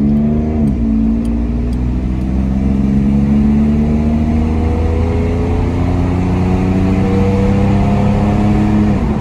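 1997 Chevrolet Camaro's 3.8-litre V6, heard from inside the cabin, accelerating hard. Its note drops at a gear change shortly after the start, climbs steadily, then drops again at another upshift near the end. It pulls smoothly, without the hesitation on acceleration that a failing mass airflow sensor (code P0102) has been causing.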